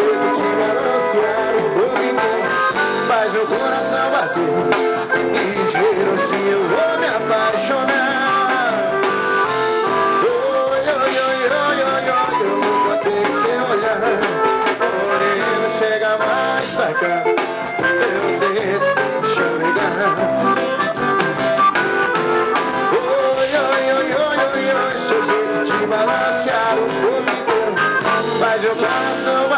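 Live sertanejo band playing a dance number, with accordion, acoustic and electric guitars and drums.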